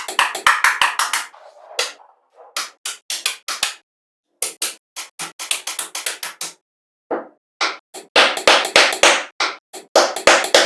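Rapid series of sharp strikes, about three to four a second, in runs broken by short silent gaps.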